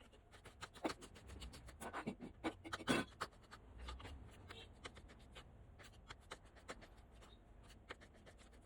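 Irregular light clicks, taps and scraping, busiest and loudest in the first four seconds, then sparser.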